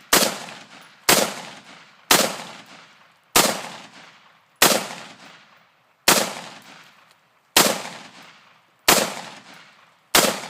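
AR-15 rifle fired semi-automatically as fast as the trigger is squeezed: nine shots about a second to a second and a half apart, each with a long echo trailing off.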